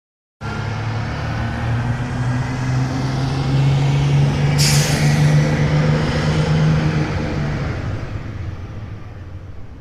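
School bus engine running, growing louder and then fading away toward the end, with a sudden sharp air-brake hiss about four and a half seconds in.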